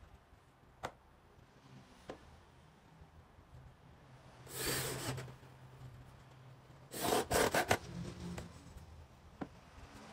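A cordless drill-driver driving screws to fix concealed cabinet hinges: two short bursts a couple of seconds apart, the second one stuttering in several quick pulses. A few light clicks of handling come before.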